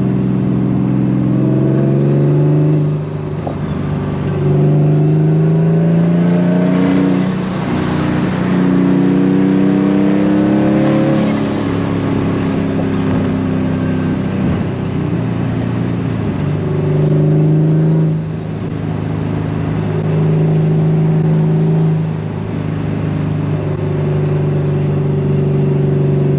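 Turbocharged Nissan Silvia S15's engine accelerating through the gears: the engine note climbs in pitch, dips briefly at each shift, and pulls again, with several shifts.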